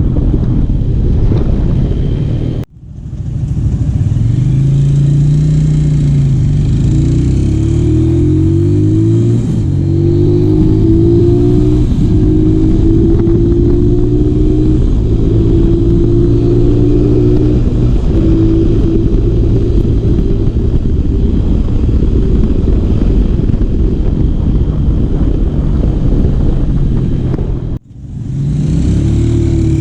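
Modified Honda Tiger motorcycle engine pulling hard under a fast ride, with wind rush over the microphone. The engine pitch rises and falls, then holds in steps between gear changes. The sound cuts out abruptly twice, a few seconds in and near the end.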